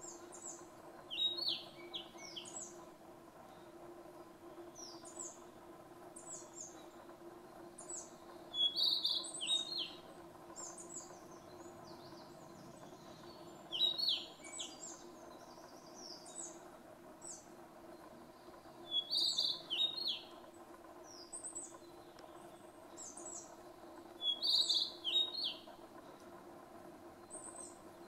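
Male Narcissus flycatcher singing: five loud short phrases of a few quick notes, about one every five seconds, with softer, higher notes between them.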